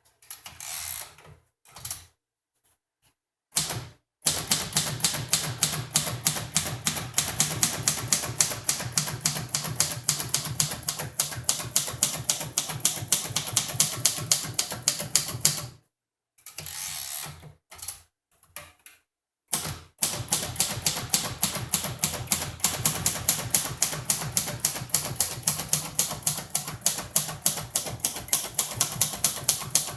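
A 1953 Royal Quiet De Luxe manual typewriter typing: a fast, even run of key strikes starts about four seconds in, after a few short sounds. The run breaks for about three seconds around the middle and then carries on.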